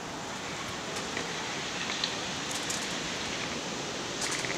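Steady outdoor background hiss, with a few brief high clicks or tinkles about halfway through and again near the end.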